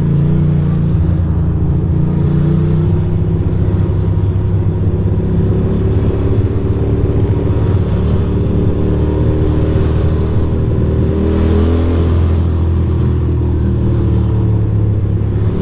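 2006 Ducati Monster 620's air-cooled L-twin engine running steadily in slow traffic, its pitch rising and falling a little with the throttle.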